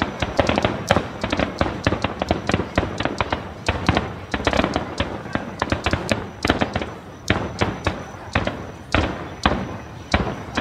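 Rapid volley of aerial firework shells bursting, many sharp bangs a second running together. Near the end the bangs thin out to separate reports about half a second apart.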